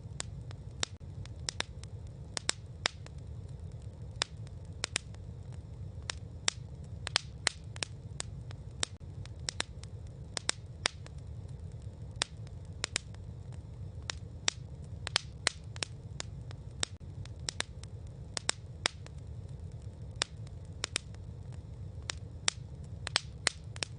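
Campfire crackling: sharp pops at irregular intervals, about two a second, over a steady low rumble.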